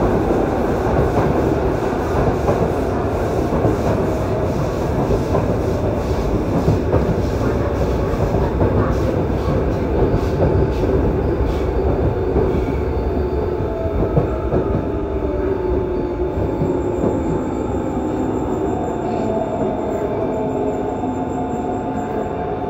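Yokohama Municipal Subway 3000A subway train with Mitsubishi GTO-VVVF control running between stations, heard inside the passenger car: a steady rumble of wheels on rail and running gear that eases off slightly toward the end.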